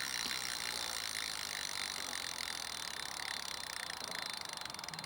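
Upside-down BMX wheel spinning freely, its freewheel pawls ticking rapidly as it coasts and slowly fades.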